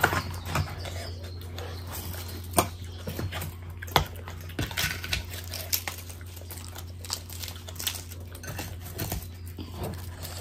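Close-miked eating sounds: wet chewing and lip smacking of bhatura soaked in mutton curry, with the soft tearing of the puffed bread and fingers squelching in the curry. Irregular sharp mouth clicks run throughout, the loudest about two and a half and four seconds in, over a steady low hum.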